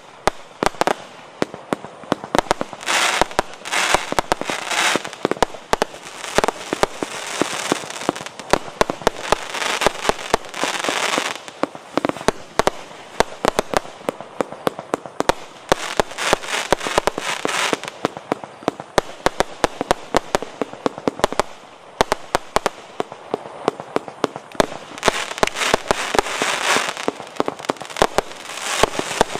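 A 196-shot JF C25 firework battery firing: a rapid, unbroken run of sharp bangs as shots launch and burst, with louder stretches of dense noisy bursts every few seconds.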